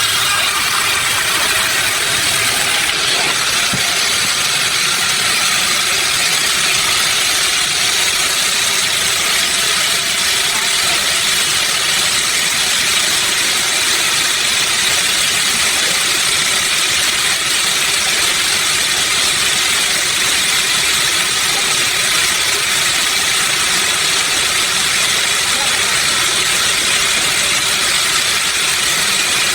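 Sawmill machinery running steadily: a loud, continuous mechanical noise, mostly high-pitched hiss and whine, that does not change.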